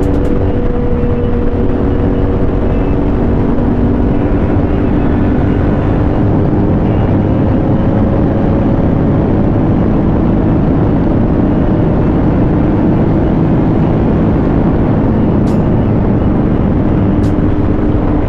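Motorcycle engine pulling at a steady cruise, its pitch drifting only slowly, under a loud rush of wind and road noise.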